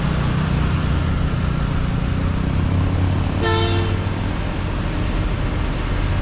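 Steady road rumble of a vehicle driving in traffic, with one short car-horn toot about three and a half seconds in.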